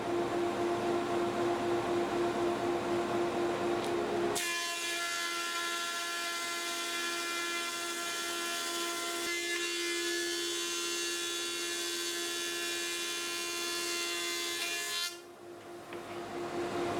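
Thickness planer running steadily, then about four seconds in its cutterhead starts planing a thin hardwood strip taped to an MDF sled, a loud, bright, steady cutting noise with a high whine that lasts about eleven seconds before the machine runs free again.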